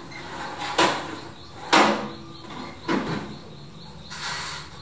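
Metal baking tray being pushed onto the rack of a countertop electric oven, with three sharp clunks about a second apart, the second the loudest, then a softer knock near the end as the oven's glass door is shut.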